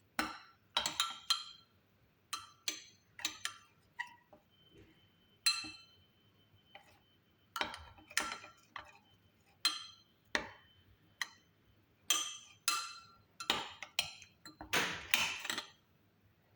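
A spoon stirring a thick coffee-and-honey mixture in a cup, clinking against the cup's sides in irregular, ringing strikes, about one or two a second, with a quick flurry of clinks near the end.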